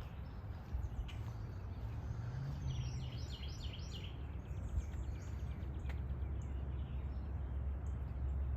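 A bird calls a quick run of repeated high chirps about two and a half seconds in, over a steady low rumble of outdoor background noise.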